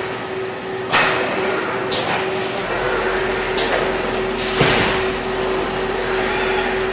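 Robotic palletizer and packaging line running: a steady machine hum with four sharp clunks, each trailing off in a brief hiss.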